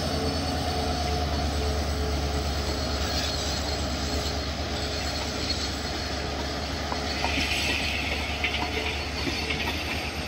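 Train hauled by an Indian Railways WDG4 diesel-electric locomotive, whose two-stroke diesel engine gives a steady low rumble, with faint wheel squeal on the rails. About seven seconds in, a brief hiss and a few light clicks from the wheels join it.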